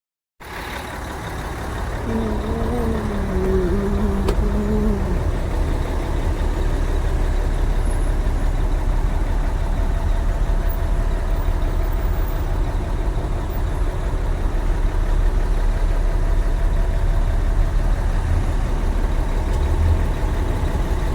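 Mercedes-Benz Actros truck's diesel engine running steadily, a loud low rumble. About two to five seconds in, a brief wavering pitched sound rises over it.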